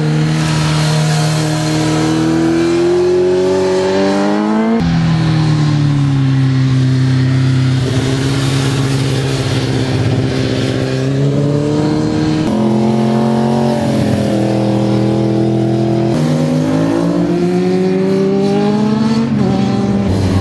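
Sport motorcycle engines revving hard through a run of corners. Their pitch climbs as they accelerate and drops again, with several abrupt breaks where one rise ends and the next begins.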